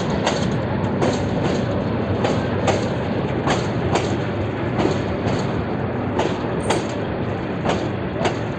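Parabat Express passenger coaches rolling past, their wheels clacking over the rail joints about two to three times a second over a steady rumble.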